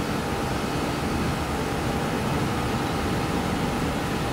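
Boeing 737's twin jet engines on landing approach, flaring just above the runway: a steady rushing noise with a faint steady whine.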